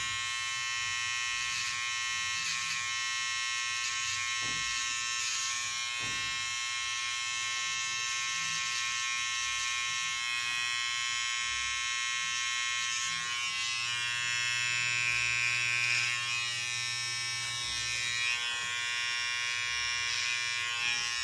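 Electric hair clipper running with a steady buzzing hum as it trims beard hair along the cheek line from sideburn to jaw.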